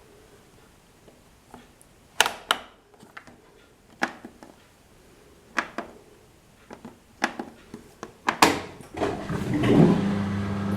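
AEG Öko Lavamat washing machine: a series of sharp clicks and knocks, then about nine seconds in a motor starts and runs with a steady hum.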